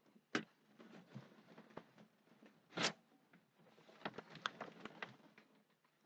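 Faint handling noises of objects being moved about: a single click early on, a short rustle about three seconds in, and a cluster of small light clicks and taps around four to five seconds.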